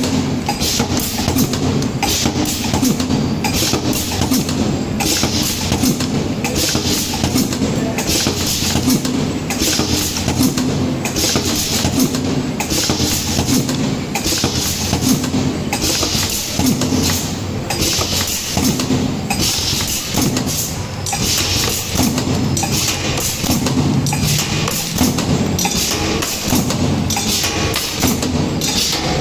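Automatic indexing aerosol filling machine for metered-dose inhalers running in production: a steady low motor hum, knocking as it cycles, and a burst of hiss about once a second.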